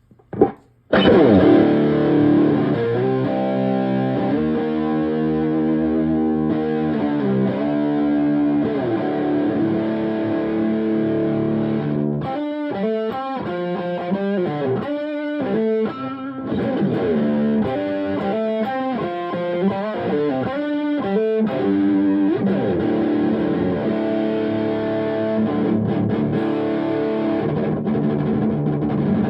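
Electric guitar with EMG pickups playing heavy distorted riffs through the Gremlin Machine Shop Firepower preamp pedal, with its boost off. Playing starts about a second in, with a stretch of tight, stop-start chugging in the middle.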